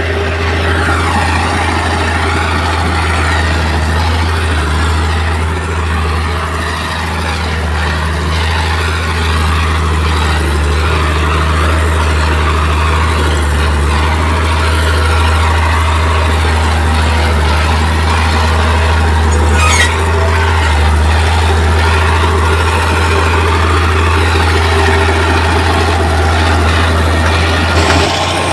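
Heavy diesel engine of earthmoving machinery running steadily with a deep, unbroken rumble, a faint higher whine coming and going, and one short sharp clank about two-thirds of the way through.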